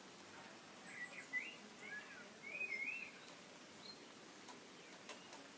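A songbird singing one short phrase of quick, rising and falling whistled notes, starting about a second in and lasting about two seconds, over a faint steady hiss.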